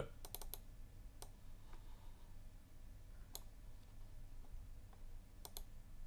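Sparse, faint clicks of a computer mouse and keys: a quick cluster at the start, a single click about a second in, another past three seconds, and a pair near the end, over a low steady hum.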